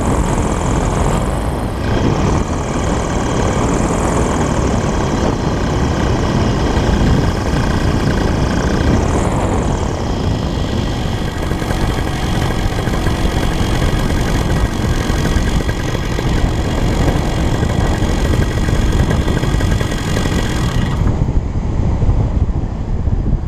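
Paramotor engine and propeller running under heavy wind rush on the microphone. About 21 seconds in the higher engine tones drop away, leaving a low rush, as the engine is throttled back for the landing on the beach.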